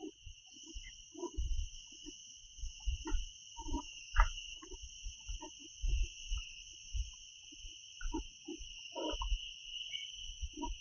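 A steady, shrill chorus of forest insects, two unbroken high tones, with irregular footsteps thudding and squelching on a slippery, muddy forest trail over it.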